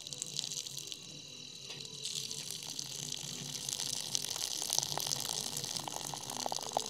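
Starchy cooking water pouring out of a pot of boiled rice past a lid held ajar, falling onto the ground in a steady stream that grows heavier about two seconds in.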